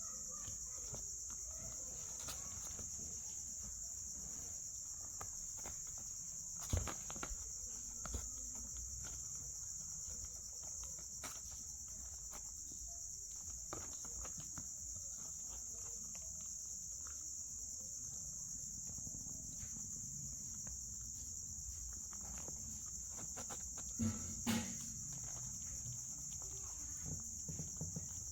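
Steady high-pitched chirring of an insect chorus, unbroken throughout, with a few soft knocks about seven seconds in and a pair more near the end.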